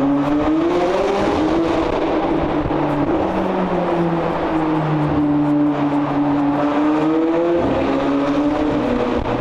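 McLaren 765LT's twin-turbo V8, breathing through IPE downpipes, running under steady throttle. Its note climbs a little about a second in, holds level, then swells around three-quarters of the way through before easing back.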